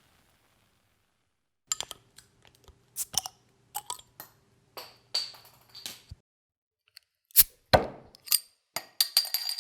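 Glass bottle and metal bottle cap clinking and tapping as the bottle is opened: a string of sharp clinks with a high metallic ring, starting after a short silence, with two louder knocks near the end.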